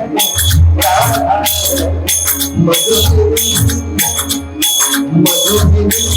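Devotional music interlude: jingling hand percussion struck about twice a second in a steady rhythm, over a low drum and a melody.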